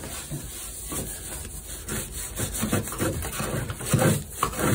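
Sponge float rubbed back and forth over fresh stucco, floating the patch smooth. A run of rough rubbing strokes that gets louder near the end.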